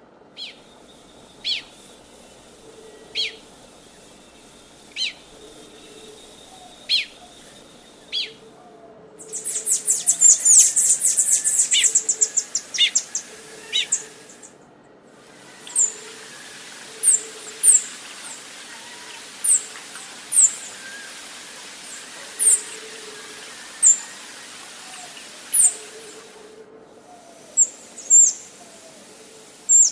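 Birds calling: sharp, high chip notes repeated every second or two, with a fast, high-pitched trill of many notes near the middle. Soft low cooing notes repeat in the background.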